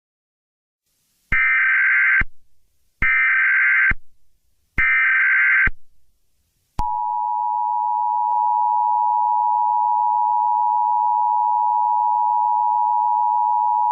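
Emergency Alert System tones: three short bursts of SAME header data warbling between two pitches, then, about seven seconds in, the steady two-tone attention signal that announces an alert.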